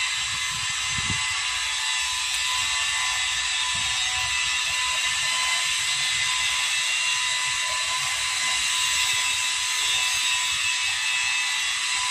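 Metal lathe running steadily with a radial drill's spindle shaft chucked in it: an even mechanical hiss with a faint high whine.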